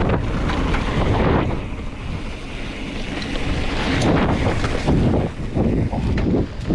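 Wind buffeting the microphone of a camera on a mountain bike descending a hard-packed dirt trail, with tyre rumble and the bike rattling over bumps. The wind eases a little about two seconds in, and the rattles pick up near the end.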